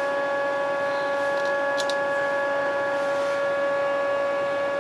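Steady machine hum with a constant pitched whine and its overtones, unchanging throughout, and two quick clicks about two seconds in.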